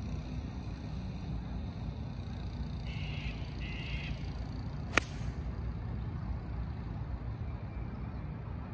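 Golf ball struck off the tee with a TaylorMade UDI 2-iron: one sharp click about five seconds in, over a steady low rumble.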